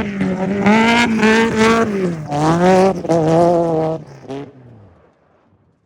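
Off-road race vehicle's engine running at high revs. Its pitch dips briefly about two seconds in and picks up again, then drops and fades away about four and a half seconds in.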